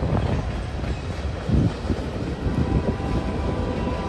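Freight cars of a passing manifest train rolling by: a steady low rumble of steel wheels on rail, with irregular knocks and clanks from the cars.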